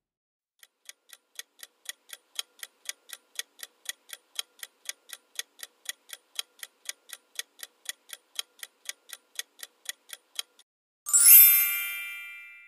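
Quiz countdown-timer sound effect ticking about four times a second for roughly ten seconds. About a second after the ticking stops, a bright chime rings and fades, marking the reveal of the correct answer.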